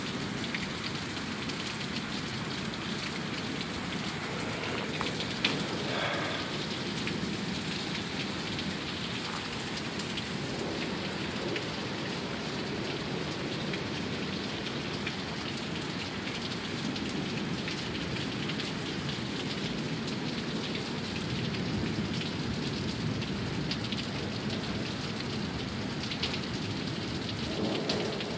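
Heavy downpour of rain, a dense steady hiss of water falling and splashing on surfaces, with one sharp tap about five seconds in.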